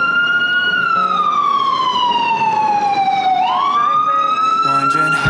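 Siren in wail mode: a loud tone that sinks slowly for about three seconds, then climbs quickly again about three and a half seconds in and holds high.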